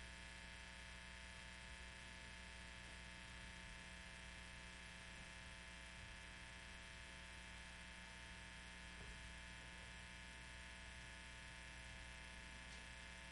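Near silence with a steady electrical mains hum, a faint even buzz made of many evenly spaced tones.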